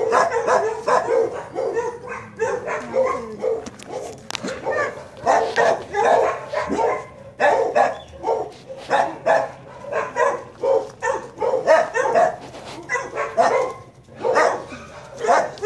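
A dog barking over and over, a steady run of barks about two a second with a short lull near the end.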